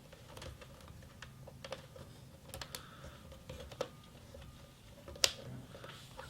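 Light, scattered clicks and taps of hands handling a plastic filament spool while stretching elastic netting over its rim, with one sharper click about five seconds in.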